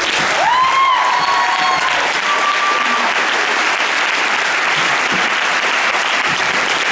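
Audience applauding steadily, with a high rising cheer from one listener about half a second in and another short high cheer a couple of seconds later.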